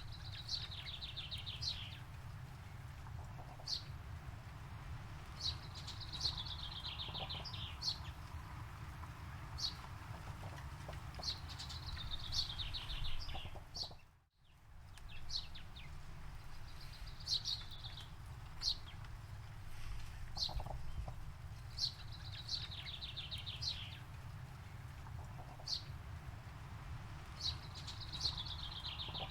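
Forest birdsong: a bird repeats a short song of a few sharp high notes followed by a falling trill about every five or six seconds, over a steady low rumble. The sound fades out and straight back in about halfway through.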